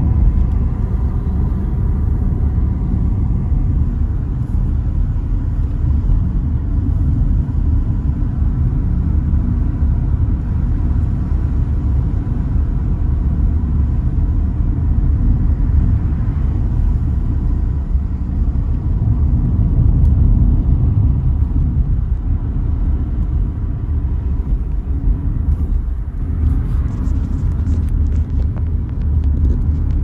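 Steady low rumble of a car driving along a road, engine and tyre noise heard from inside the car.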